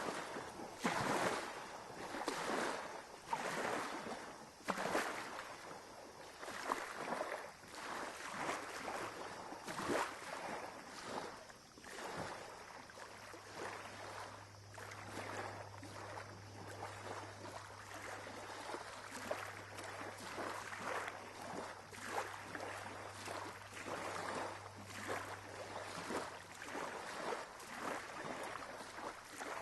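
Sea water splashing and lapping in irregular surges, louder in the first few seconds. About twelve seconds in, a steady low hum starts under the water sound and stays.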